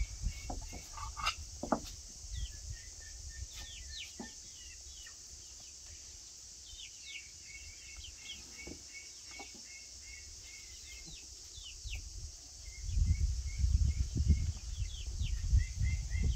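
Small birds chirping in quick, repeated short calls. In the first few seconds there are a few light clinks of plates set down on a table. From about three-quarters of the way through, a loud low rumble is the loudest thing.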